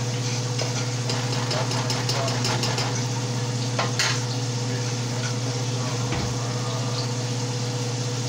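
A metal spoon stirring in an enamelled pot, with quick scraping clicks against the pot for the first few seconds and one sharp knock about four seconds in. A steady low hum runs underneath.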